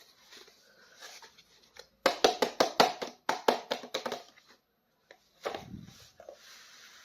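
Hands handling crinkly plastic toy packaging: faint rustling, then about two seconds in a quick run of sharp crinkling clicks, followed by a soft thump.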